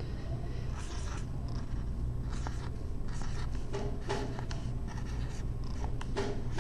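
Dry-erase marker writing digits on a whiteboard: a quick, irregular run of short strokes, over a steady low hum.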